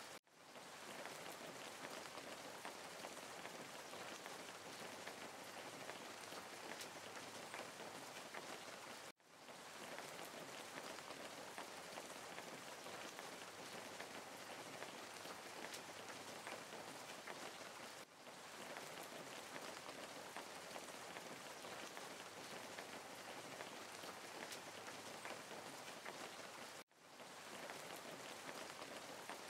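Steady, even hiss with a fine crackle, like rain, from a looped background noise track. It cuts out and fades back in about every nine seconds.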